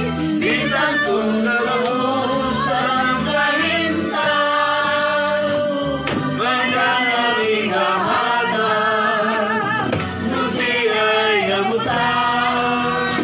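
A group of men and women singing together over accompanying music, with a man's voice prominent.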